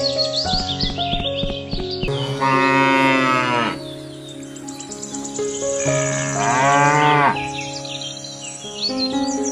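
A cow mooing twice, each moo about a second and a half long, over background music.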